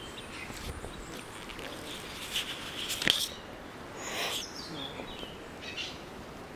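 Quiet outdoor background with a few faint, short bird chirps, plus close rustling of cloth and a sharp tap about three seconds in, as a young howler monkey clambers over a lap and grabs at a hat.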